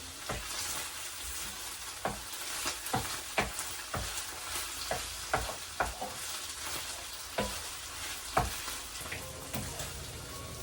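Ground pork sizzling as it fries with onions and garlic in a pan, while a utensil stirs it, knocking against the pan at irregular moments.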